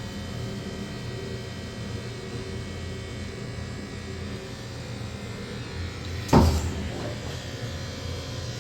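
Washing machine running with a steady motor hum and low rumble. A single loud knock sounds a little past six seconds in.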